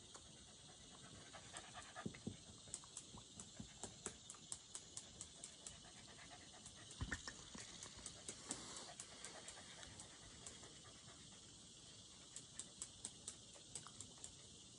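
A Shiba Inu panting in quick, faint, rhythmic breaths, about two to three a second, in two runs. About halfway through there is a single knock of the camera being handled.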